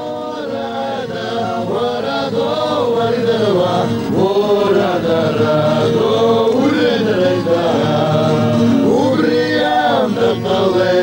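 Music: a choir chanting in several voices, swelling in over the first few seconds.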